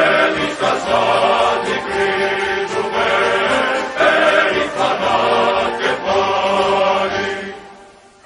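Choral music: a choir singing sustained chords, fading out near the end.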